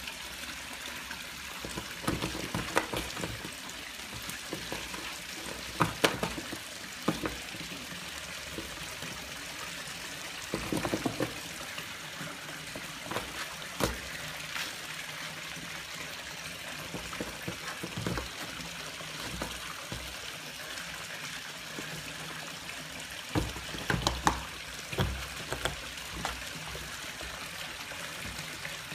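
Scattered scratches and knocks of a kitten pawing and clawing at a cardboard box, with a cluster of them near the end, over a steady trickle of running water.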